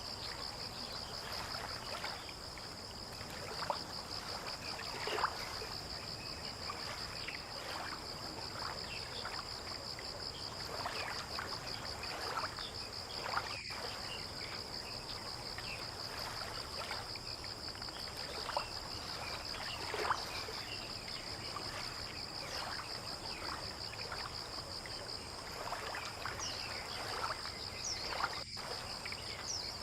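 Waterside ambience: a steady, high-pitched insect trill runs throughout, over irregular water lapping and trickling.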